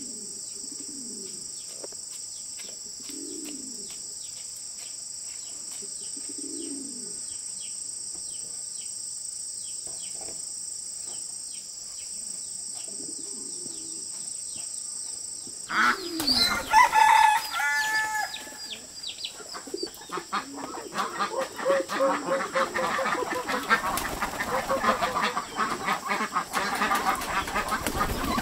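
A steady high insect drone with a low bird call repeating about every second and a half. After a sudden change about halfway through, a rooster crows, then chickens cluck and wings flap busily as the poultry are fed.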